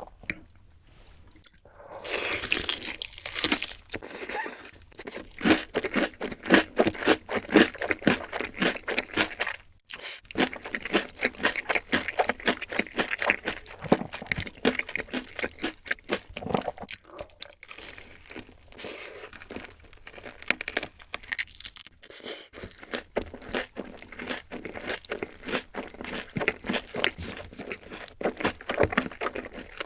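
A person biting into and chewing crunchy fried food close to the microphone, with rapid, dense crunches broken by a couple of short pauses.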